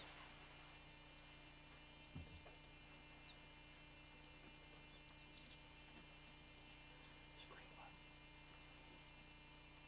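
Near silence: faint bird chirps and twitters, most of them bunched about five seconds in, over a steady low hum. A soft low thump a little over two seconds in.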